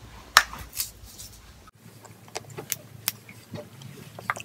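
Scattered sharp clicks and taps, the loudest about half a second in. A low background hum cuts off abruptly partway through.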